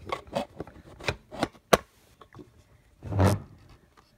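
Handling noise from small plastic toy-house pieces and the phone held close to them: a run of light clicks and knocks, one sharp click just under two seconds in, then a short rubbing scrape about three seconds in.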